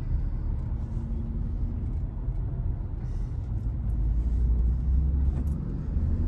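Low, steady rumble of the vehicle heard from inside its cabin, swelling a little about four seconds in.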